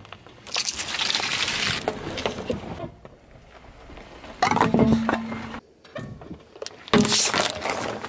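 A car tyre rolls over and crushes objects on asphalt in three separate crushes. First a block of jelly squashes under it for a couple of seconds. Then a small metal sweets tin crumples with a brief ringing tone, and near the end there is another loud crunch.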